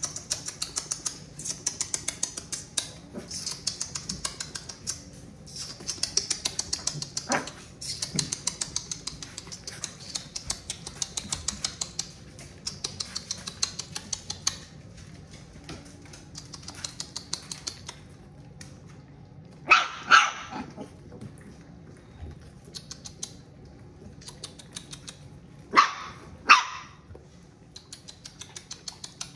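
A dog barking: two sharp barks about two-thirds of the way in and two more near the end. Before them comes a long stretch of fast, high-pitched scratchy ticking.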